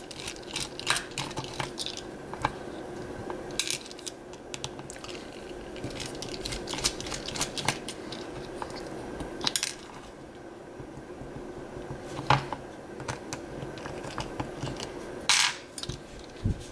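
Small metal lock parts and a flat-tip screwdriver clicking and tapping as a lock is disassembled: irregular sharp clicks, some in quick runs, with a longer scraping rasp near the end.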